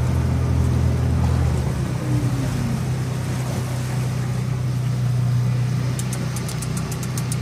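Boat engine running with a steady low hum. Near the end a fast, even ticking starts, about six ticks a second.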